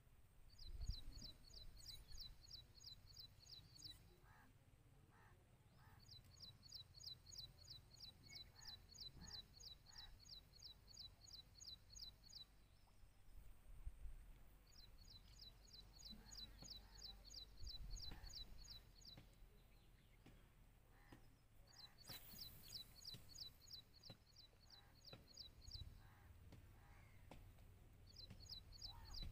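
Faint, high, rapid chirping, about four to five chirps a second, coming in bouts of a few seconds with short pauses between, over a faint low rumble.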